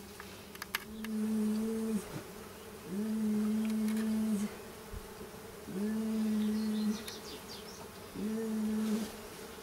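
Honey bees buzzing close to the microphone as they fly around their disturbed wild nest: four separate buzzes of about a second each at one steady pitch, each rising briefly as it starts.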